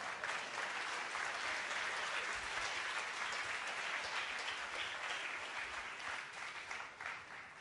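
Large lecture-hall audience applauding, a dense steady clapping that fades away near the end.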